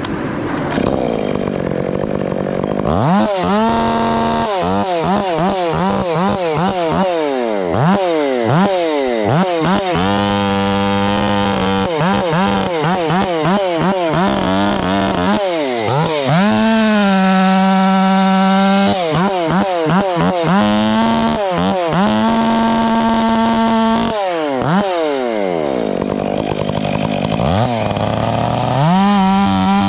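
Two-stroke chainsaw revved up and down again and again, held at full throttle for a second or two between revs, as when limbing a felled tree.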